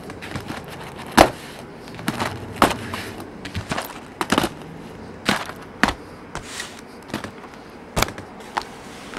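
Sealed cardboard hobby boxes of trading cards handled and set down on a tabletop: a string of irregular knocks and taps, about a dozen, some sharper than others.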